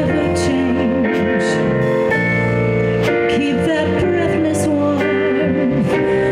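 Live jazz combo playing an instrumental passage: sustained keyboard chords under a wandering lead melody, with drum cymbal strokes.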